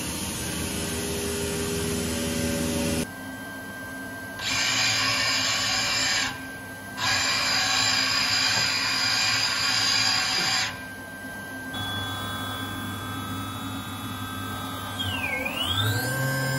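Homag BOF 311 Venture 15L CNC machining centre running: a steady electric hum with several tones, then two long bursts of loud hissing. Near the end the spindle's whine drops in pitch and climbs straight back up, and a low tone rises as the spindle spins up again.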